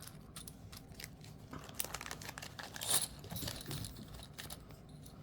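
Small pieces of a balance-stacking game being handled on a table: scattered light clicks and knocks with some rustling, one louder click about three seconds in.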